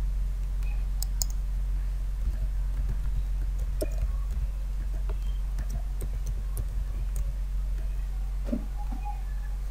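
Scattered key clicks of someone typing a password on a computer keyboard, over a steady low electrical hum.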